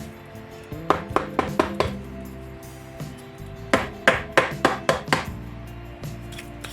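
Two quick runs of sharp hard taps on parts of a sand-clogged fishing reel, about five taps a second or so in and about six more near the middle, over background music.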